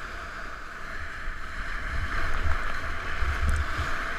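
River whitewater rushing and splashing around a kayak running rapids, a steady hiss with irregular low rumbling buffets on the action camera's microphone.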